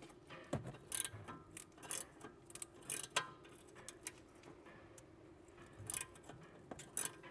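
Irregular sharp metallic clicks and ticks from a wrench working a 19 mm nut on a sway bar end link while a hex key holds the stud. The clicks come in a cluster over the first three seconds and again near the end.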